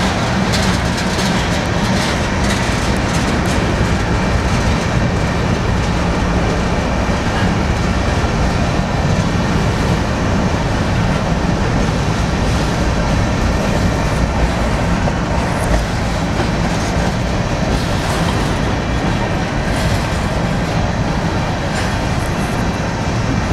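Union Pacific manifest freight train's cars rolling past in a steady rumble, with the clickety-clack of wheels over the rail joints.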